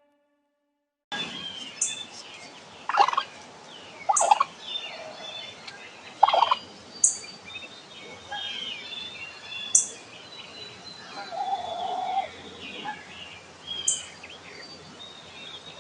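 Wild turkey gobbling three times in close succession, with songbirds calling around it and a short high chirp repeated every few seconds.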